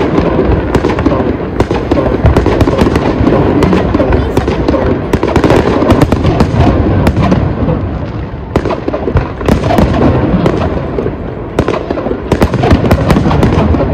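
A fireworks display going off in a dense, unbroken barrage of bangs and crackling, many reports each second.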